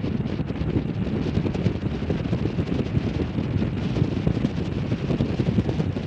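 Heavy wind buffeting on the microphone, a dense fluttering rumble that is the loudest sound, with an MV-22 Osprey tiltrotor flying under it, its rotors tilted up.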